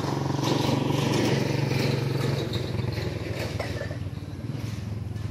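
Motorcycle engine running as it goes past, loudest about a second in; about halfway through its pitch drops and it fades away.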